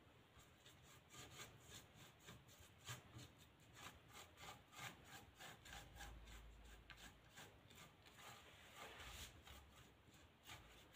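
Faint, repeated strokes of a paintbrush dragging oil paint across a plywood board, a dry rubbing that comes back a few times a second.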